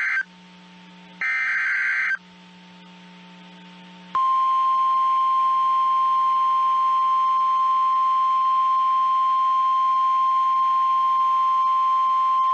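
Emergency Alert System header: SAME data bursts, harsh warbling screeches. One burst ends just at the start and another lasts about a second. About two seconds later a single steady 1050 Hz NOAA Weather Radio warning alarm tone starts and holds loud and unbroken.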